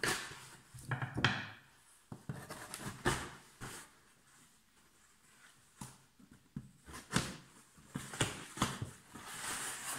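Cardboard shipping box being handled and shifted on a wooden tabletop: irregular scrapes, rustles and light knocks.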